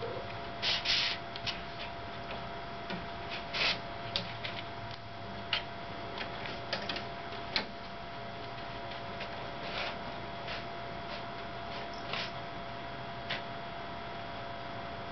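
Steady hum of a fax-printer combo, with short scattered rustles and clicks as a cat paws and noses at the paper in its output slot. The loudest rustle comes about a second in.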